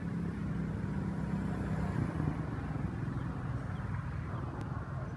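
A motor vehicle's engine running, a steady low rumble with a hum that fades about two seconds in.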